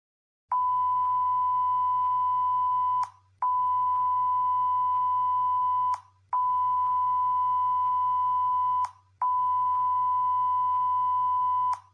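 Emergency alert (EAS) attention tone: four long, steady beeps of about two and a half seconds each, all at one high pitch, separated by short gaps, over a continuous low hum.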